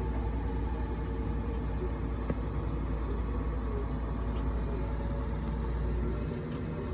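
Steady low rumble with a faint hum, unchanging throughout, and one small click about two seconds in.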